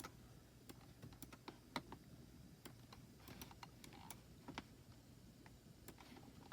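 Faint, irregular clicking of a computer keyboard, a few scattered keystrokes.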